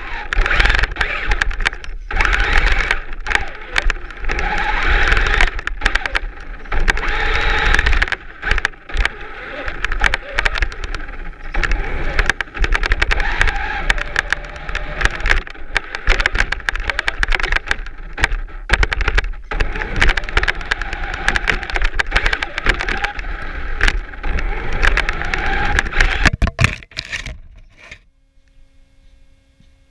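Traxxas Slash 4x4 RC truck's electric drivetrain whirring while it pushes snow with a cardboard plow blade, surging and stopping again and again. The noise cuts off about two seconds before the end, leaving near quiet.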